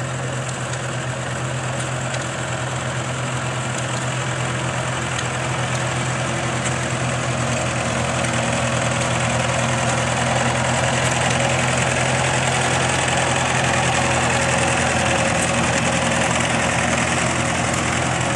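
Engine of an antique Cockshutt farm tractor running steadily at low speed as the tractor drives slowly past, with a steady low hum that grows gradually louder over the first half as it comes nearer.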